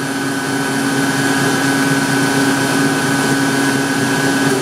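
Spindle of a Sharnoa HPM30 vertical machining center running steadily at about 2,000 rpm, a constant hum with a higher whine over it, on a machine still cold from sitting idle.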